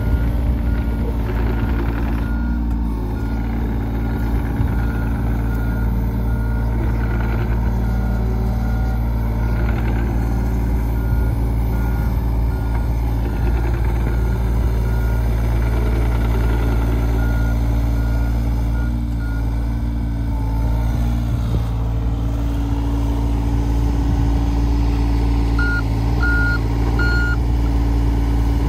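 John Deere 35G mini excavator's diesel engine running steadily as the boom and bucket work. A warning beeper sounds faintly and regularly through most of it, then three louder beeps near the end.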